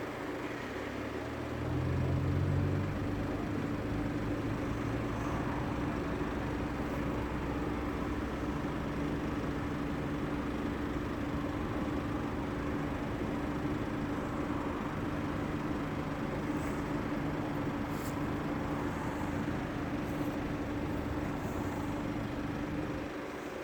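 A motor vehicle engine running at idle with a steady hum. It grows louder about two seconds in and drops back just before the end.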